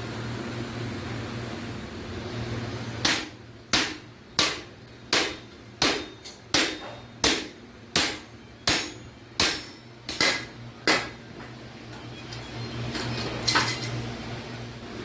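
Hammer striking iron sheet in an even series of about a dozen blows, roughly three every two seconds, each with a short metallic ring, followed by a few lighter strikes near the end. A steady low hum runs underneath.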